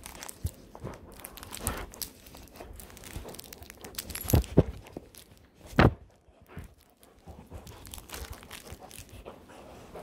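A pitbull mix puppy chewing and mouthing a plush duck toy: continual close-up rustling and crunching of fabric, broken by a few louder sharp sounds about halfway through.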